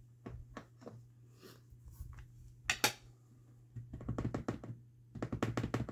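Light taps and clicks of rubber stamps and an ink pad being worked on a craft table. A louder clack comes near the middle, then two quick runs of rapid taps, like a stamp being dabbed with ink.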